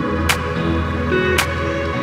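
Background music with a slow, steady beat, about one hit a second, over held tones.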